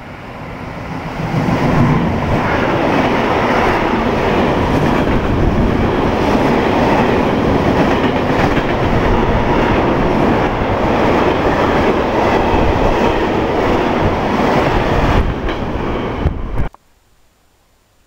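Freight train of open goods wagons passing through a station at speed: wheels rumbling and clattering on the rails. The noise builds over the first couple of seconds, holds steady and loud, and cuts off suddenly near the end.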